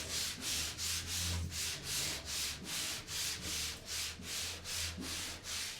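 Sound-deadening square being rubbed down by hand onto the van's metal panel, a rhythmic back-and-forth scrubbing at about three strokes a second.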